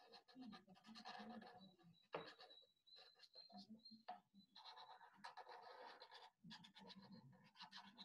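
Faint scratching of a felt-tip marker drawn in curved strokes across paper, in irregular stretches, with one sharp tap about two seconds in.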